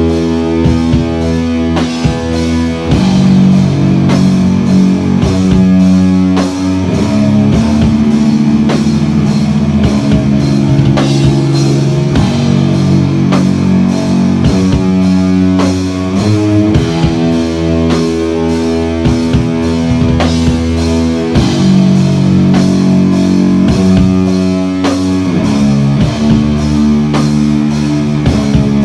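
Rock band playing an instrumental live: sustained electric guitar chords that change every few seconds over bass and a steady drum-kit beat, with no singing.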